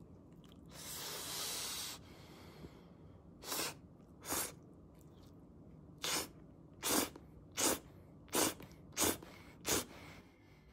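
A person's short, noisy breaths through the nose or mouth. One longer breathy hiss comes about a second in, then about eight quick puffs follow, each under a second apart.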